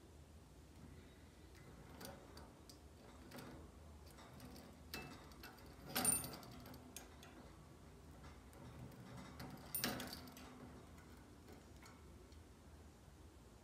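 Scattered light clicks and taps from a parakeet's wire cage and its hanging toys, with two louder knocks about six and ten seconds in.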